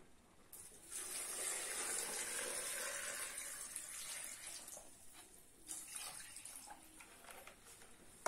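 Water being poured from a small plastic tub into a plastic bucket packed with lemons for preserving. It is a steady pour from about half a second in that tapers off after about five seconds, followed by a few light plastic knocks as the tub is handled.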